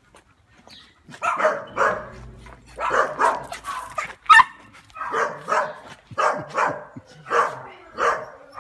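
Tibetan terrier barking repeatedly in short, quick pairs, starting about a second in, with one sharp high-pitched yelp midway.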